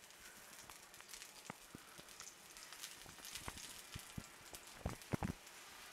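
Ghee sizzling and crackling faintly on a hot tawa as it is brushed over a spinach flatbread, with a few sharper clicks about five seconds in.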